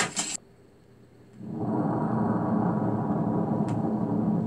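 A short crash at the very start, then after a brief gap a steady low rumble of a nuclear explosion from test footage begins about a second and a half in and carries on. It is played back through a computer's speakers.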